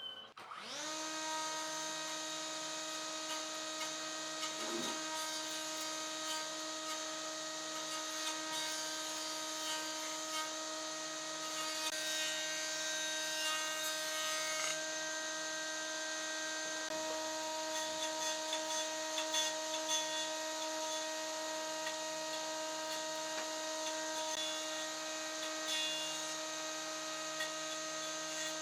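Electric power tool switching on, spinning up to speed within a moment, then running steadily at a constant pitch.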